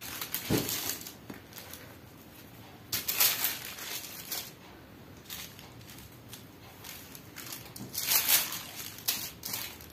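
A sheet of butter paper rustling and crinkling as it is handled and spread flat. It comes in several short bursts, the loudest about three seconds in and again about eight seconds in, with a soft thud near the start.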